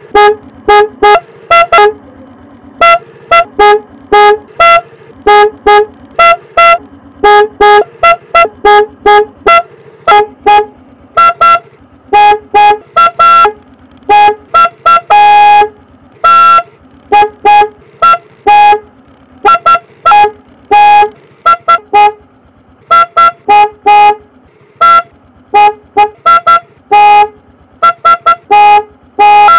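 A single-tone 12-volt plastic snail horn for a motorcycle (Goyo klakson keong) sounded in a rapid, irregular series of short, loud honks, all on the same steady pitch. A few longer blasts come near the middle.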